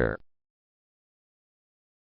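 The tail of a spoken word at the very start, then total digital silence.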